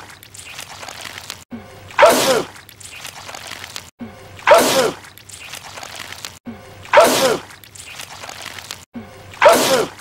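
A man sneezing loudly, the same short sneeze clip looped so that it repeats four times about two and a half seconds apart, each loud burst preceded by a brief quieter build-up.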